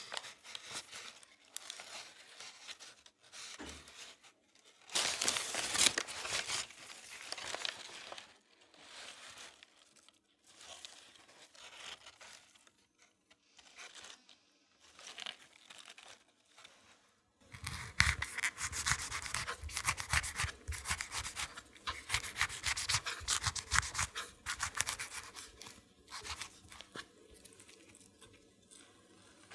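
A brown paper bag crinkling and rustling as produce is lifted out of it, in irregular bursts. About two-thirds of the way through comes a longer, denser stretch of crinkling.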